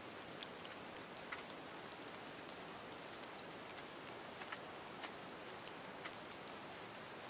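Light rain falling: a steady soft hiss with a few scattered drop ticks.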